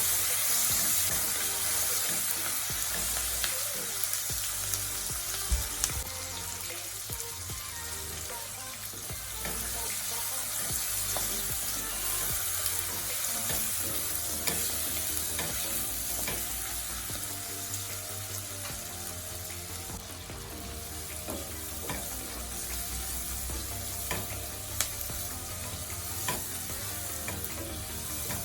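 Pork chow mein ingredients sizzling steadily as they are stir-fried in a hot pan, with scattered clicks and taps of a utensil against the pan.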